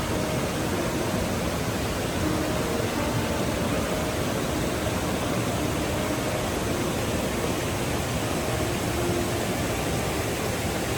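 Steady, even rush of water pouring down the wide rock face of Shiraito Falls.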